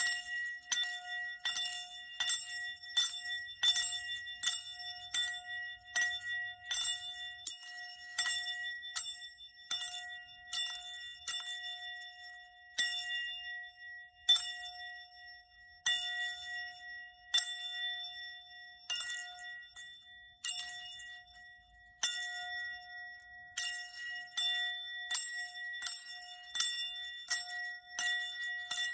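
Small metal bell rung in quick runs of strokes, about two a second with short pauses, its ringing tones carrying on between strokes, for sound healing.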